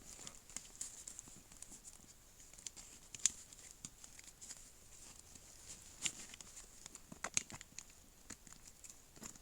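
Campfire crackling: irregular snaps and pops, a few louder ones, over a faint steady high hiss.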